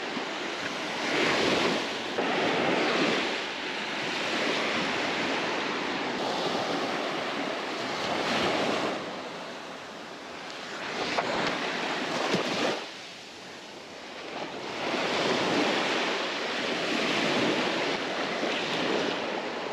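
Small surf waves breaking and washing up the sand, the hiss swelling and ebbing every few seconds.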